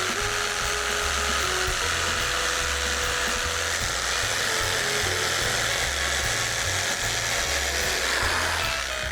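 Background music over a small electric power tool running steadily, which dies away near the end.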